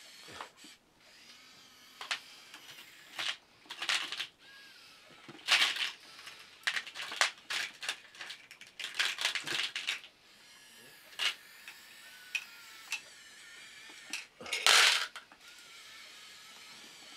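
Radio-controlled 1/50-scale Komatsu PC1250-8 model excavator working: a faint small-motor whine with irregular sharp plastic clicks and clatters, loudest a few seconds in and again near the end.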